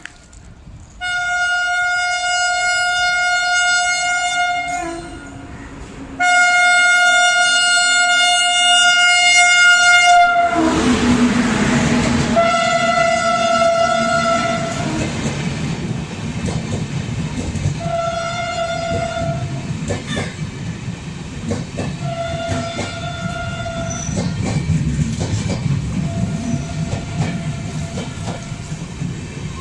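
Indian Railways WAP7 electric locomotive horn honking repeatedly: two long blasts, then four shorter ones, as the train approaches and passes at a 30 km/h speed restriction. From about ten seconds in, the loud rumble of the passing locomotive and coaches, with wheels clacking over the rail joints, runs under the horn.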